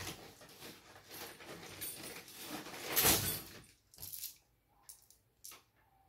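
Handling noises at a workbench: an uneven rustling, scraping stretch that builds to its loudest about three seconds in and stops, followed by a few separate sharp clicks or taps.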